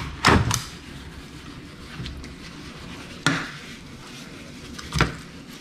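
Kitchen clatter during fish filleting: three sharp knocks of a knife or utensil against a cutting board or dish. The first, a third of a second in, is the loudest; the others come about three and five seconds in.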